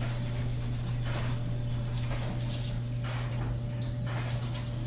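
Seasoning shaken from a shaker can onto fish fillets: several short rustling shakes of falling grains, over a steady low hum.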